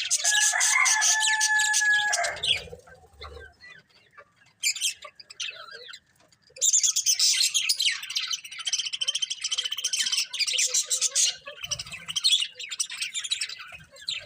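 Budgerigars chirping and warbling in rapid chatter, two bouts of busy calling with a quieter stretch of scattered chirps between them.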